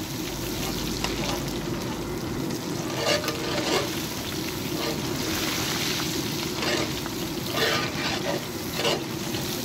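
Battered fish pieces deep-frying in a large wok of hot oil, sizzling steadily. A metal skimmer stirs them, adding a few brief louder swishes and scrapes.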